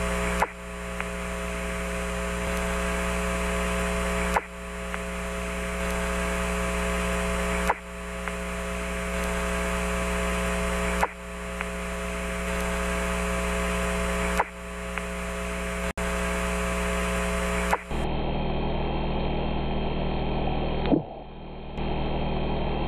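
Apollo 15 lunar-surface radio audio: a steady hum and hiss with a short sharp clank about every three and a half seconds, the same moment replayed. The narrator takes the clank for the high-gain antenna's metal mast knocking against the lunar rover as the astronaut tries to seat it, carried through his suit to the microphone. From about eighteen seconds in it plays at one-third speed and sounds duller, with one clank near the end.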